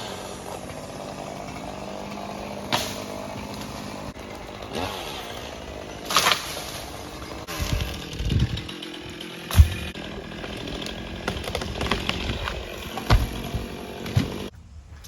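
Two-stroke chainsaw running and cutting into a big maple tree, its pitch rising and falling as it works. Several sharp cracks punctuate it, and the saw stops just before the end.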